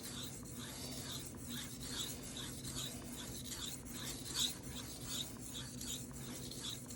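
Knife blade of CPM 154 steel being stroked across a Shapton Rockstar 1000-grit whetstone. It makes a faint, smooth rasp that repeats about two to three times a second.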